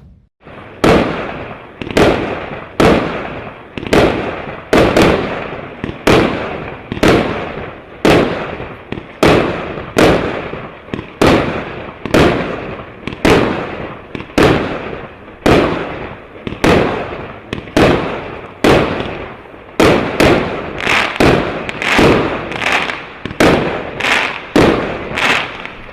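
Shampusik R7282 firework cake firing shot after shot: a sharp bang roughly every second, each trailing off into a fading hiss. The shots come a little faster near the end.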